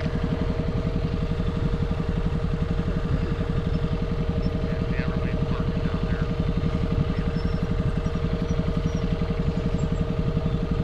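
Motorcycle engine running at a steady low speed, its firing pulse even and unchanging, heard from the camera rider's own bike.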